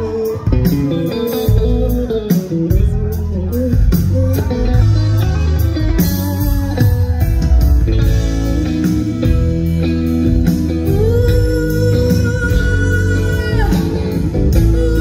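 Live rock band playing, with an electric guitar carrying a bending melodic line over drums and a steady bass.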